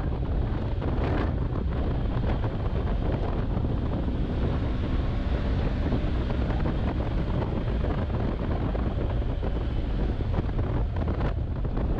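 Heavy wind buffeting on the microphone over a motorcycle's engine and road noise at riding speed, steady throughout.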